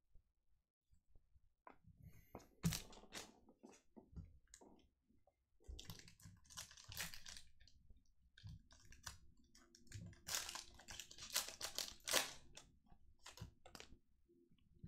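Trading cards and their pack wrapper being handled: a busy run of light clicks, crinkles and rustles that starts about two seconds in and eases off near the end.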